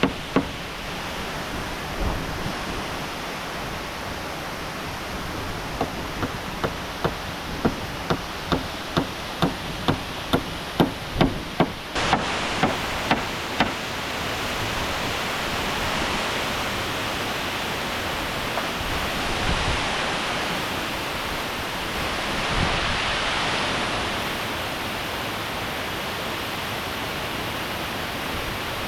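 Steady rush of a waterfall. From about six seconds in, a run of regular knocks, about two a second, goes on for some eight seconds, as of something being struck repeatedly.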